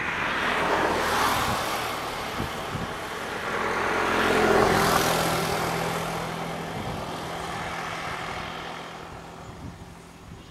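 Motor vehicles passing: two swells of road and engine noise, the second the loudest, about four and a half seconds in, with a low engine hum, then fading away.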